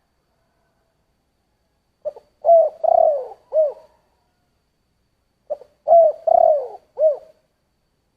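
Spotted dove cooing: two matching phrases about three and a half seconds apart, each a short note, two longer coos and a short final note. It is a low 'thổ'-type voice, as Vietnamese dove keepers class it.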